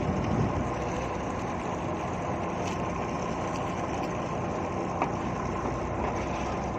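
Fishing boat's engine running steadily, with a brief tick about five seconds in.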